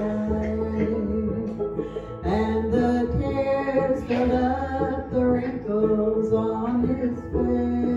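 Gospel song: a woman singing into a microphone over instrumental accompaniment.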